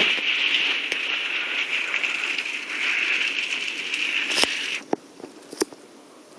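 Steady rushing noise of a windstorm, with a few sharp clicks and knocks. The rush drops away suddenly just under five seconds in, right after a knock.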